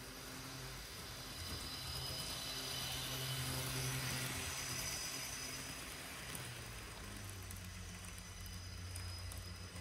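N-gauge Kato TGV Sud-Est model train running slowly on its track, its ESU LokSound 5 decoder playing TGV running sounds through the model's small speaker as a low hum with hiss. It grows louder as the train passes close by and then fades as it moves away, and the hum shifts lower about seven seconds in.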